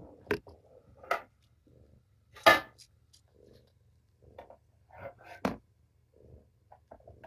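Scattered soft clicks and short rustles from newborn kittens nursing at their mother cat. The loudest is a brief rustle about two and a half seconds in.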